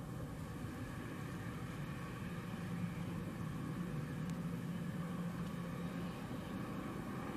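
Bombardier Global 6000's twin Rolls-Royce BR710 turbofans at taxi power: a steady jet whine and rush as the business jet taxis.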